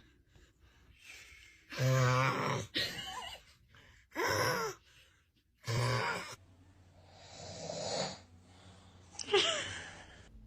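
A man snoring loudly: a series of heavy, rattling snores about two seconds apart, with wheezing, groaning breaths between them.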